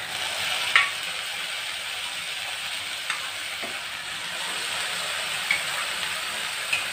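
Cooked beef pieces tipped into a hot pan of fried onion-spice masala, which starts sizzling suddenly as they land and keeps sizzling steadily. A few sharp clicks come through it, the loudest about a second in.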